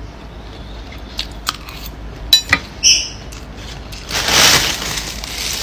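Eating sounds: scattered light clicks and clinks of cutlery on a plate, a short high chirp about three seconds in, then a rustle for about a second and a half near the end.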